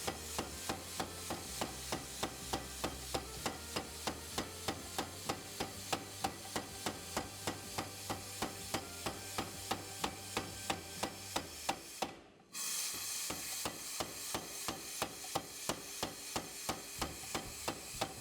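Power hammer striking a hot steel knife blade in a steady, even rhythm of about three blows a second, each blow ringing. The blows stop for a moment about two-thirds of the way through, then start again at the same pace.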